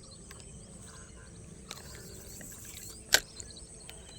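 Steady outdoor background with a thin, high insect drone, a few faint ticks, and one sharp click about three seconds in.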